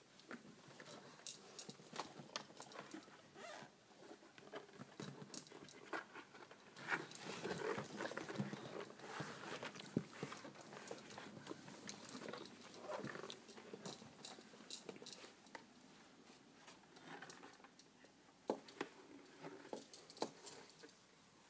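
Scattered small knocks, taps and rustles of toddlers handling plastic toys, busiest around the middle.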